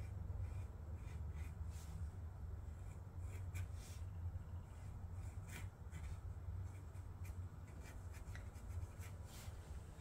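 Sharpie marker tip scratching faintly across watercolour paper in short, irregular strokes, over a steady low hum.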